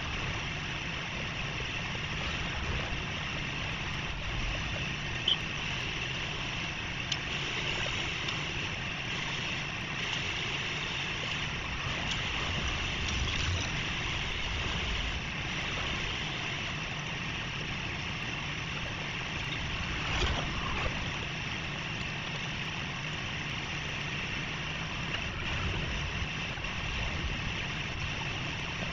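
Steady outdoor street background noise: a low traffic rumble under a windy hiss. A sharp brief knock comes about five seconds in, and another short knock comes around twenty seconds.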